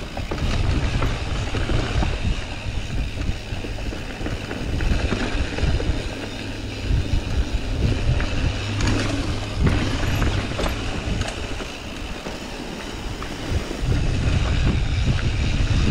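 Mountain bike riding down a dirt forest trail, heard from a GoPro action camera: tyres rolling on dirt and the bike rattling and knocking over bumps, under a low rumble of wind on the microphone. It gets louder about two seconds before the end.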